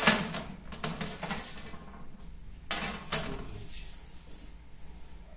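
Kitchen utensils and dishes clattering: a sharp knock right at the start, then more clinks and scrapes about a second in and again about three seconds in, quieter after that.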